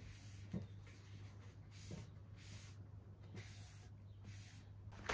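Paper towel wiping rainwater off a slatted outdoor chair: faint soft rubbing strokes, repeated every second or so, with a few light knocks and a steady low hum underneath.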